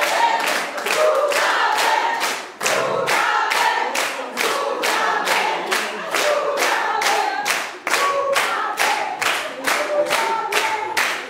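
Audience clapping along in time, a steady beat of about two and a half claps a second, with a group of voices singing over it.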